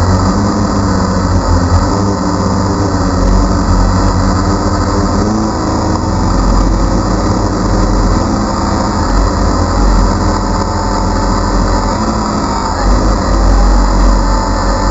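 Steady whirr of a DJI Phantom quadcopter's motors and propellers, picked up by the GoPro camera it carries, with wind rumbling on the microphone. The motor pitch wavers slightly near the end as the drone manoeuvres.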